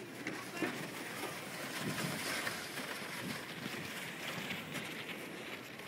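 Steady rushing of wind on the microphone out on an open snowy slope, with faint scattered sounds of distant voices.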